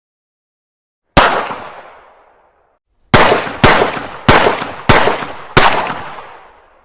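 Pistol shots: a single shot about a second in, its echo fading away, then five shots in quick succession about two a second, each trailing off in a decaying echo.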